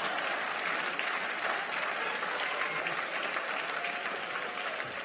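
Audience applauding steadily after a stand-up punchline, easing off slightly near the end.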